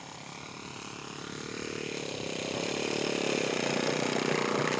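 Radio-controlled scale model airplane engine running at a steady pitch, growing steadily louder as it approaches.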